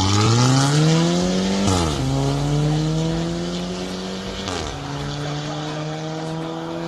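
Audi A5 Quattro with an aftermarket valvetronic exhaust accelerating hard through the gears. The engine note climbs, drops sharply at two upshifts, the first near two seconds in and the second past the middle, and grows fainter as the car pulls away.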